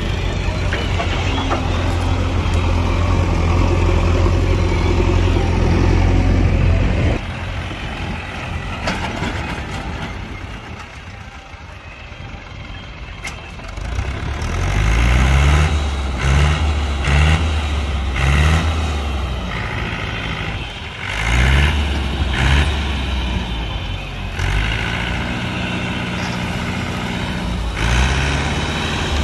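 Mahindra 575 DI tractor's four-cylinder diesel engine running steadily, dropping back about seven seconds in, then revving in repeated short bursts with rising pitch and holding high revs near the end as the hydraulic lift tips the loaded trailer.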